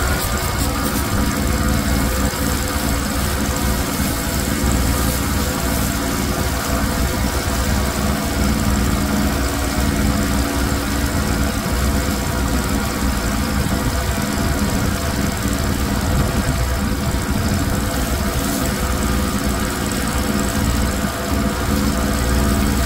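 Pressure washer running steadily, with its high-pressure spray hissing as it is swept across a wet rug on concrete.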